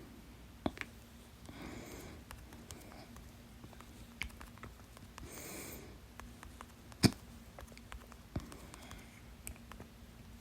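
A person hiccuping: one sharp, loud hiccup about seven seconds in and a few fainter clicks, between slow breaths. By the uploader's account, the hiccups come from gas trapped after a very fizzy soda.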